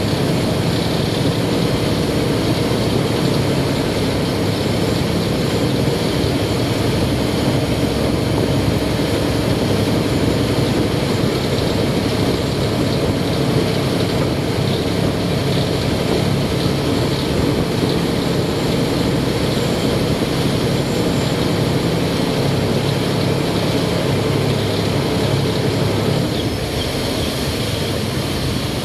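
Khlong Saen Saep express boat's diesel engine running steadily at cruising speed, a loud drone mixed with the rush of the churning wake at the stern. The engine note drops back a little about two seconds before the end.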